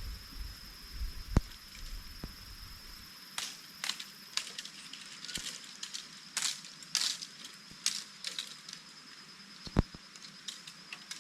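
Outdoor rustling and a few sharp cracks, with a cluster of short rustles in the middle. A steady high-pitched whine runs underneath.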